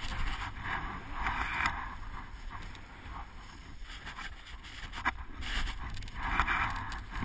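Skis sliding and carving through snow, a hiss that swells with each turn, over a steady low rumble of wind on the microphone. A single sharp click comes about five seconds in.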